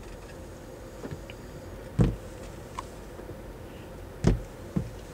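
A few dull thumps on a car's windshield, heard from inside the cabin while the glass is washed with a squeegee: one about two seconds in and two close together near the end.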